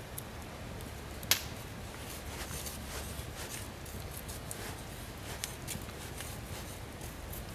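An ESEE Laser Strike knife blade shaving curls down a wooden stick to make a feather stick: a series of soft scraping strokes, with one sharp click about a second in.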